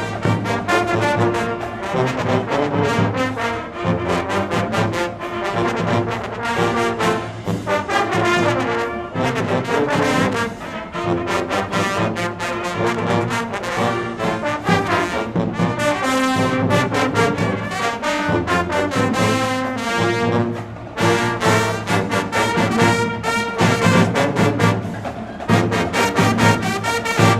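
A college pep band playing live: loud brass, led by trombones and trumpets, over a steady percussion beat.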